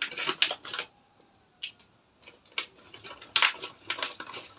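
Handling of small plastic accessory parts in their packaging: irregular crackling rustles and light clicks, in two clusters, the first in the opening second and the second over the latter half, with a couple of sharp clicks in between.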